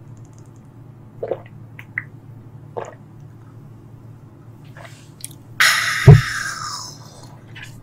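A woman downing a shot of soju, with a few soft swallowing sounds, then a loud, breathy exhale about six seconds in after the drink.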